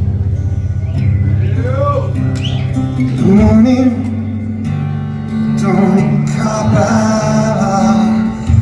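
Live rock music: guitars over sustained low bass notes, with a male voice singing in places.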